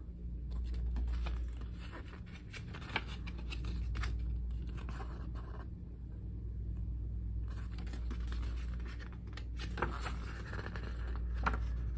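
Paper pages of a CD liner-notes booklet rustling and scraping as they are handled and turned, with scattered short rustles and clicks over a steady low hum.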